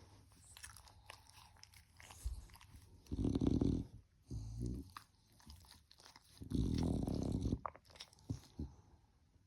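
A sleeping puppy snoring: three snoring breaths, a short one after the first and the longest about two-thirds of the way through, with quiet gaps between.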